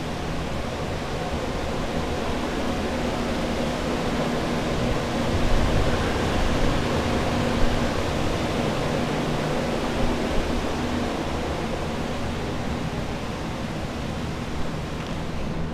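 Water-damage drying equipment, floor air movers and dehumidifiers, running: a steady rushing drone with a low hum underneath and a few light knocks.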